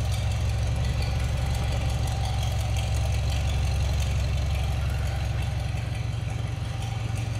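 An engine idling steadily: a low, even rumble with a fast regular pulse.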